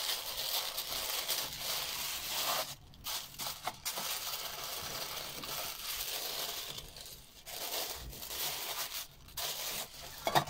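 Paper and cardboard rustling and crinkling in irregular spells as a subscription gift box is opened: the sticker seal pulled off and the tissue paper inside folded back, with a few short pauses.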